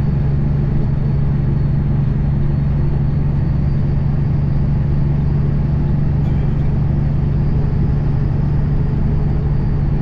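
The Cummins ISX straight-six diesel of a 2008 Kenworth W900L semi running steadily at cruise, a deep even drone with road rumble, heard inside the cab.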